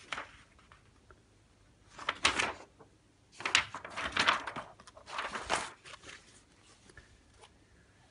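Sheets of paper rustling as printed pages are handled and turned over, in three or four short bursts.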